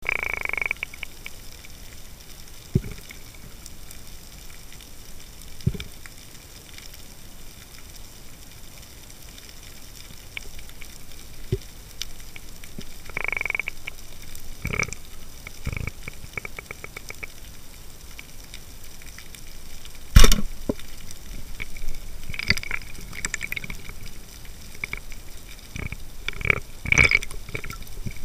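Underwater sounds during speargun fishing: scattered clicks and knocks, then one sharp, very loud crack about twenty seconds in, the speargun firing. A cluster of knocks and rattles follows near the end as the speared fish struggles on the shaft.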